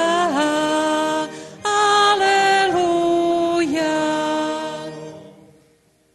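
Liturgical chant sung in church, a melody of long held notes with a short break about a second and a half in, dying away about five seconds in. It falls where the Gospel acclamation is sung at Mass.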